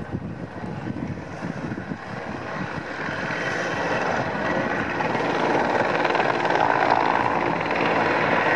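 Mi-24 Hind attack helicopter flying past: the rapid beat of its main rotor over the whine of its twin turboshaft engines, swelling louder from about two seconds in.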